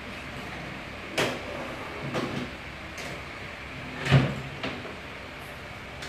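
A few sharp knocks or clunks, roughly a second apart, the loudest a little after four seconds in, over steady background noise.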